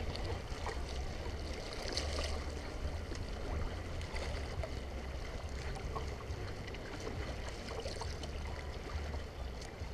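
Water sloshing and splashing around a kayak as it is paddled through light chop, with scattered small splashes and an uneven low rumble underneath.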